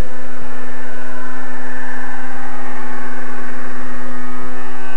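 Nitro engine of a Raptor 30 RC helicopter with a 50-size conversion, running loud at a steady pitch, its speed held even by a newly fitted governor.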